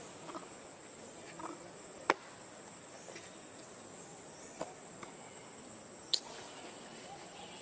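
Steady high-pitched drone of insects, with a few short sharp clicks; the loudest click comes about two seconds in.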